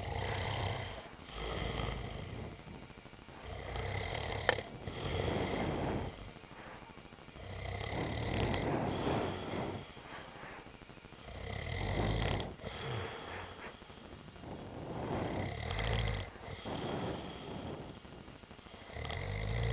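A man snoring in deep sleep, a rasping intake followed by a release on each breath, repeating about every three and a half to four seconds. A single short click sounds about four and a half seconds in.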